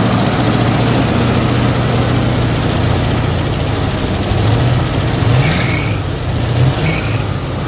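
1986 Ford F-150's fuel-injected engine running loudly at idle, with the throttle linkage worked by hand so the revs rise briefly twice in the second half.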